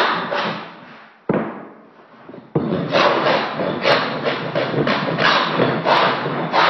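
Steel hand scraper rasping across a hardwood floor in quick repeated strokes, about three a second. The strokes die away early on, a single knock sounds about a second in, and the scraping starts again sharply about two and a half seconds in.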